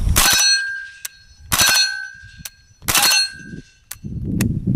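Three short bursts of fire from a suppressed HK MP5-type submachine gun, about a second and a half apart, each followed by a metallic ringing that hangs on briefly.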